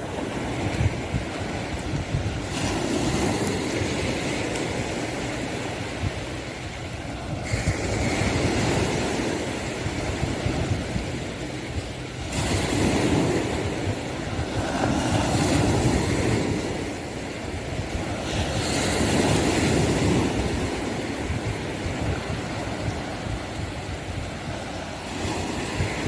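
Waves breaking and washing up the beach, swelling and easing every four or five seconds, over a steady low wind rumble on a phone microphone.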